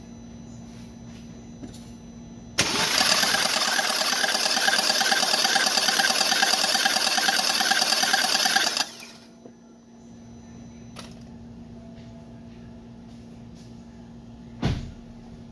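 Starter cranking a BMW N20 2.0-litre turbo four-cylinder with its spark plugs removed, for about six seconds without firing, while the engine, diagnosed with a blown head gasket, is checked. A single short thump comes near the end.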